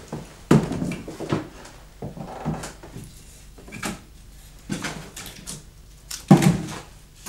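Irregular knocks and clunks from objects being handled, with soft rustling between them; the loudest come about half a second in and near the end.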